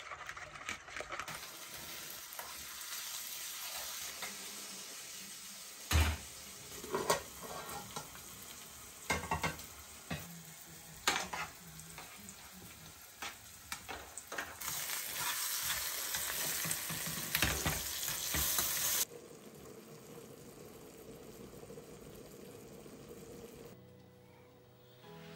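Chopped tomatoes frying and sizzling in a pan as they are stirred, with a few sharp knocks of the utensil against the pan. The sizzling cuts off suddenly about three quarters of the way through, leaving a quieter stretch.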